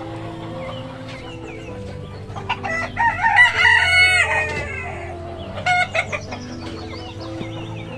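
A rooster crows once, loud and drawn out for about two seconds, starting about two and a half seconds in, with a shorter call near six seconds. Chickens cluck softly around it.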